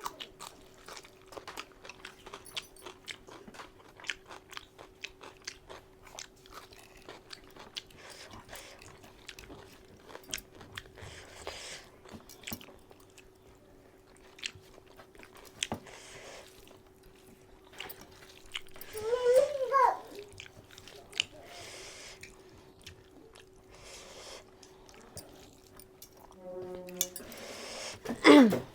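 Close-up chewing and wet mouth sounds of a person eating mutton curry, a steady stream of small smacking clicks. A short pitched vocal sound comes about two-thirds of the way in and a louder falling one near the end, over a faint steady hum.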